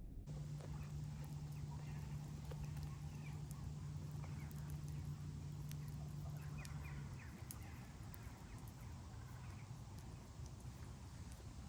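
Faint outdoor ambience with small bird-like calls and scattered sharp clicks, over a steady low hum that stops about seven seconds in.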